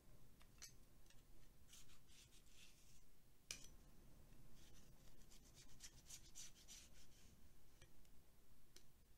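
Faint, irregular scraping strokes of a card dragged through a CPU heat sink's fins, clearing out packed dust.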